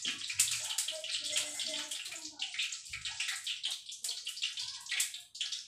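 Hot oil sizzling and crackling in a frying pan on a gas stove as food fries, with a continuous hiss and many quick irregular pops.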